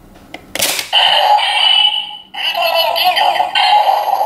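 Bandai DX R/B Gyro transformation toy playing its electronic music and sound effects through its built-in speaker. A click and a short rush of noise come about half a second in, then the toy's sound plays loudly with a brief break a little after two seconds.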